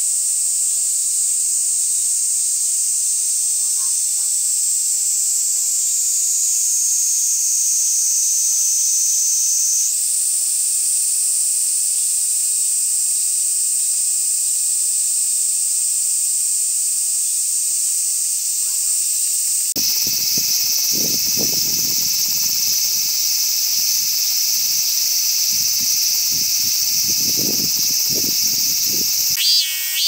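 A Kaempfer cicada (niiniizemi, Platypleura kaempferi) sings a continuous, shrill, high-pitched buzz; its pitch sags slightly, then snaps back about a third of the way in. About two-thirds through it gives way to the harsher, sizzling hiss of a large brown cicada (aburazemi, Graptopsaltria nigrofuscata). At the very end, the pulsing calls of a robust cicada (minminzemi) begin.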